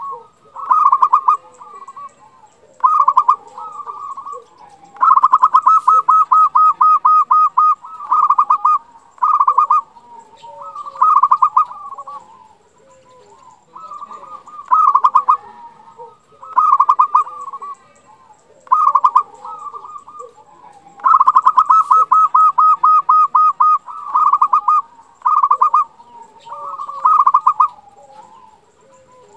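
Local zebra dove (perkutut) singing: repeated phrases of quick, pulsing coos about a second long, with two longer rolling phrases of two to three seconds.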